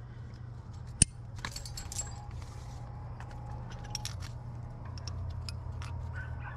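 Metal climbing gear clinking and jangling: carabiners and cams knocking together on a harness rack, with a sharp click about a second in.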